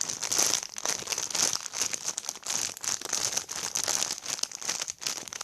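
Plastic packaging crinkling steadily as a squishy toy in its wrapper is handled and squeezed.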